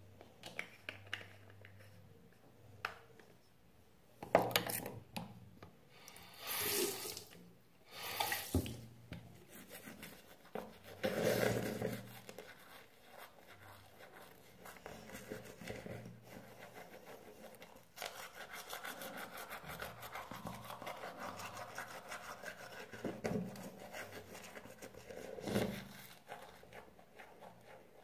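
Teeth being brushed with a manual toothbrush: a fast, steady scratchy scrubbing that runs strongest in the second half. Several short, loud hissing bursts of about a second each come in the first half.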